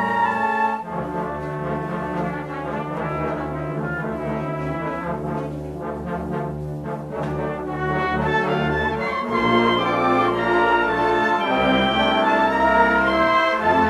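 Brass-heavy music playing sustained chords, with the low notes changing about nine seconds in.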